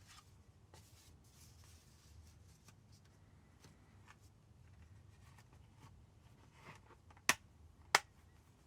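Soft rustling and light handling of a 4K steelbook and its paper inserts as they are put back, then near the end two sharp clicks a little over half a second apart.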